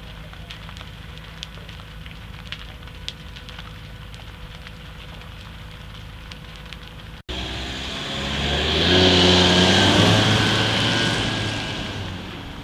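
A large building fire crackling with scattered small pops over a low steady hum. About seven seconds in, a van's engine takes over, rising in pitch as it pulls away, getting loud, then fading as it drives off.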